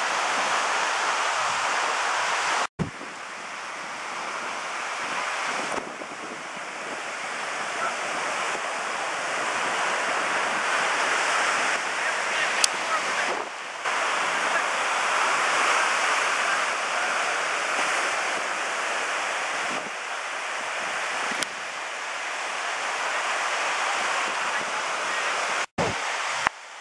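Ocean surf breaking and washing up a sandy beach, a steady rushing noise with wind buffeting the microphone. It cuts out for an instant about three seconds in and again near the end.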